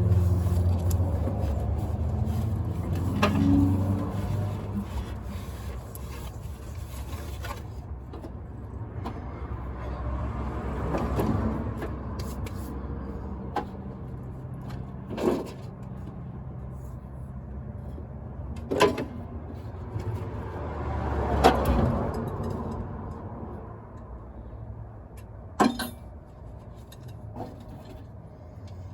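Scattered sharp knocks and clanks from hand work on the engine bay, about six in all, over a low motor hum that fades away during the first several seconds.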